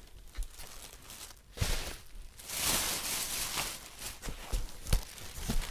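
Plastic wrapping rustling and crinkling as packed resin doll parts are handled in a cardboard box, loudest in the middle, with a few light knocks and taps scattered through.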